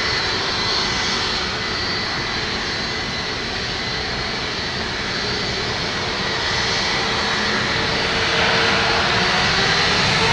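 Airbus A321neo twin jet engines running, a steady rush with a high whine. It grows louder over the last couple of seconds as the pitch of the whine rises.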